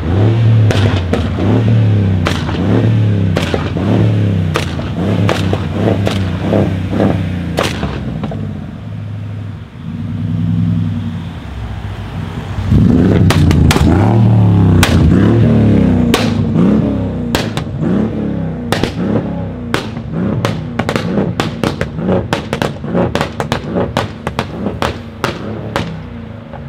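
Tuned Mercedes-Benz E500 W212 twin-turbo V8 revving and accelerating, its exhaust firing rapid strings of loud pops and bangs from a stage 3 pops-and-bangs tune. The engine settles to a steadier note a little before halfway, surges hard again just after, then crackles with a dense run of sharp bangs through the last part.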